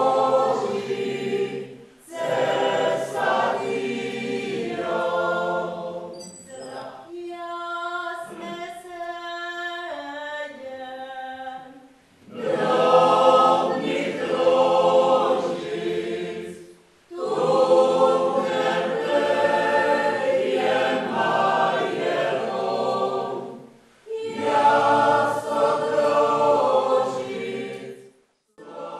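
Mixed choir of men's and women's voices singing unaccompanied, in full harmony. From about seven to twelve seconds in, the sound thins to a quieter passage with a single line stepping from note to note. The singing breaks off abruptly several times.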